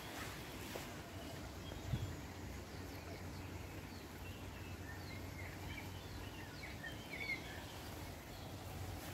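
Several small birds singing, with many short high chirps and trills, thickest in the middle and latter part, over a steady low rumble. A single short knock about two seconds in.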